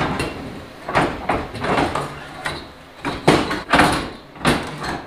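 Irregular metal clanks, knocks and scrapes as a turbocharger is wrestled into place in an engine bay, about a dozen hits.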